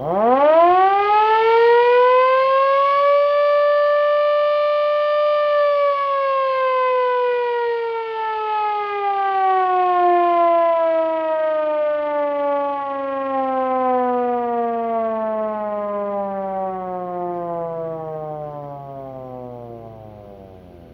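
3D-printed scale replica of a Federal Signal Model 5 mechanical siren, its rotor driven by a small 12-volt motor. It winds up quickly to a steady wail, holds for about five seconds, then winds down slowly, the pitch falling and the sound fading as the rotor coasts.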